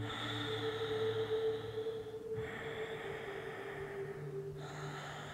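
A person breathing slowly and audibly, each breath lasting about two seconds with short pauses between, over a soft steady hum.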